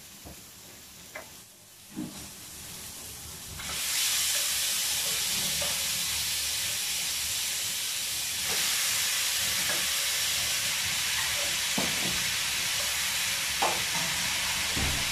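Pieces of beef spare rib go into hot oil with sautéed garlic and onion in a wok, and a steady sizzle of frying starts about three and a half seconds in, growing a little louder as more meat goes in. A few light clinks of a spoon against the pan sound over it.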